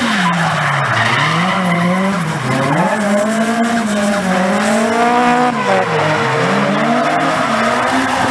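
A Nissan Silvia S14 drift car's engine revving up and down again and again as the throttle is worked through a slide. Under it is the steady hiss and squeal of the rear tyres spinning and sliding on the asphalt.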